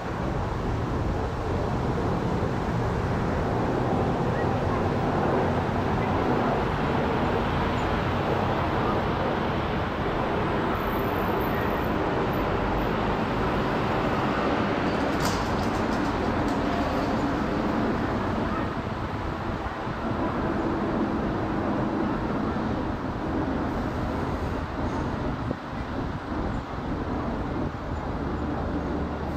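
The two GE90-115B turbofan engines of a Boeing 777-300ER airliner flying overhead: a steady, broad jet rumble that eases a little in the last third as the aircraft moves away.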